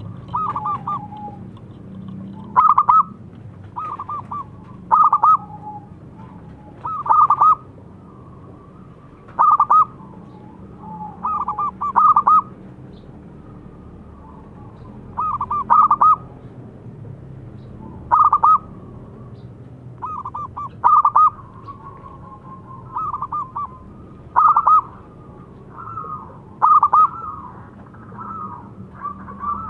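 Zebra dove (perkutut) cooing: about fourteen quick clusters of short coos, repeated roughly every two seconds, over a faint low hum.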